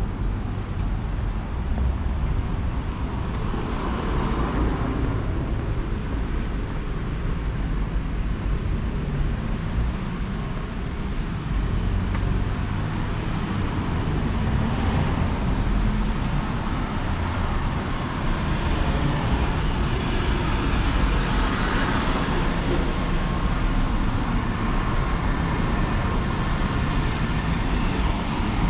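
City street traffic: a steady rumble of cars, with several vehicles swelling up and passing by, the loudest about three-quarters of the way through.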